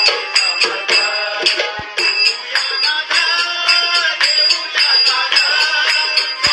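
Devotional bhajan music: a fast, steady jingling percussion beat under a melodic line.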